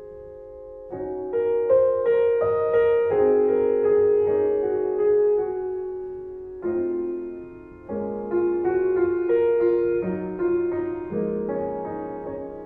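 Slow, gentle piano music: single notes and chords struck and left to ring and fade, with fresh chords about every one to two seconds.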